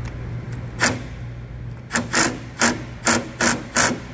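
Milwaukee Fuel cordless power tool snugging up a bolt in short trigger pulls: one brief burst just before a second in, then six quick bursts close together in the second half.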